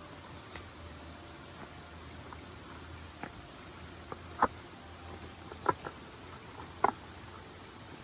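Steady forest ambience with the hiss of distant running water. A few sharp clicks come in the second half, the three loudest about a second and a quarter apart.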